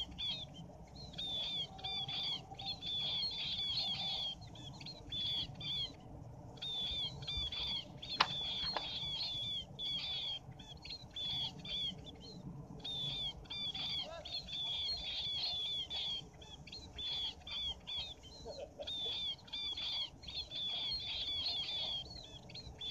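Many munias chirping without pause in thin, high, down-slurred notes. About eight seconds in there is a single sharp snap as the clap net is sprung shut over the birds.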